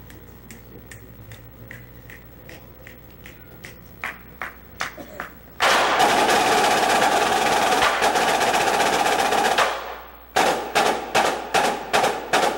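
Marching snare drum line playing in unison: faint steady ticks keep time at first, then a few strokes lead into a loud sustained roll of about four seconds that fades away, followed by a run of hard accented strokes about two and a half a second.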